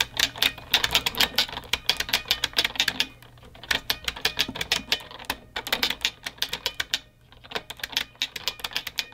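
Typing on a mechanical keyboard: rapid clacking keystrokes in bursts, with short pauses about three seconds in and again about seven seconds in.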